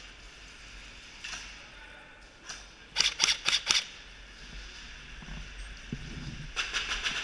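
Airsoft guns firing with sharp cracks: a couple of single shots, then a quick burst of about six shots around three seconds in, and another rapid burst near the end.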